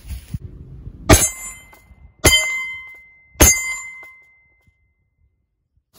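Three 9mm pistol shots striking an AR500 steel target plate, about a second apart, each a sharp bang followed by a ringing ping that fades over about a second. The ring marks each round as a hit on the steel.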